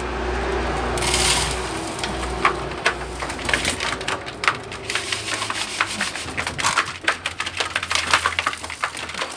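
Pigeons pecking grain at a metal trough feeder: a dense run of quick small clicks and taps that starts about two and a half seconds in and keeps going. A brief rushing noise comes about a second in.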